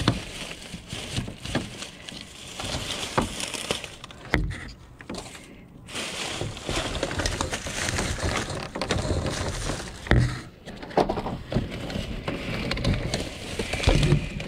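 Plastic trash bags and packaged goods rustling and crinkling as hands rummage through a dumpster, with scattered knocks of items being moved; the loudest knocks come near the end.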